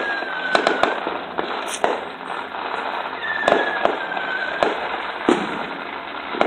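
Fireworks going off: twice, a screeching whistle falls slightly in pitch over about a second and a half, like crying dogs, amid scattered sharp pops and a steady crackle.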